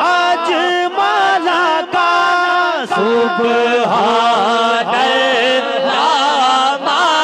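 A man chanting devotional Sufi verses through a microphone, in long ornamented phrases with a wavering, sliding pitch and only short breaks for breath.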